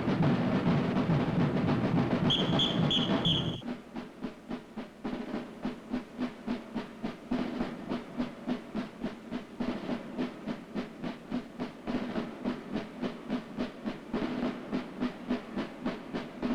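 Marching band playing loudly, with four short blasts of a whistle near the end of the phrase. About three and a half seconds in, the full band breaks off and only the drum line goes on, keeping a steady marching beat.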